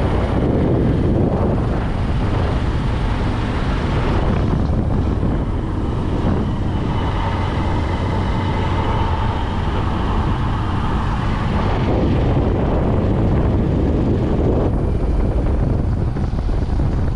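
Wind buffeting the microphone and road noise from a moving two-wheeler, a steady heavy rumble with the engine running underneath. A faint whine rises above the noise for a few seconds in the middle.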